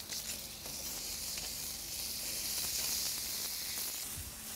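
Wagyu ribeye sizzling on a hot Himalayan salt block, just flipped with tongs so the raw side meets the block; a steady hiss.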